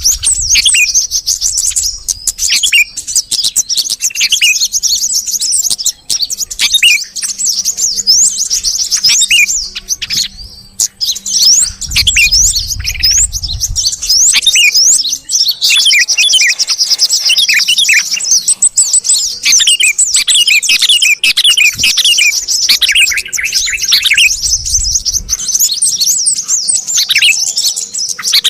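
Yellow-vented bulbul and sooty-headed bulbul calls chattering together as a bird-lure recording: dense, busy chirps, quick trills and short whistled notes with hardly a pause.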